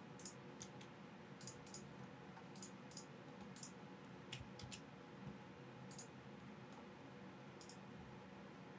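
About a dozen faint, irregular clicks of a computer mouse (Logitech MX Master 2S) as the software is operated, over a low steady room hum.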